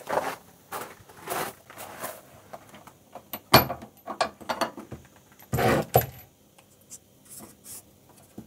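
Irregular metallic clinks, rattles and knocks of metal hardware being handled as an air-conditioner foot is unscrewed and swapped for a spring mount, with two louder knocks around the middle.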